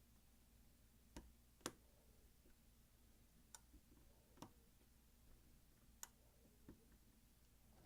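A lock pick working the wafers of an old Slaymaker Super wafer padlock: about six faint, sharp clicks at uneven intervals, the loudest a little under two seconds in.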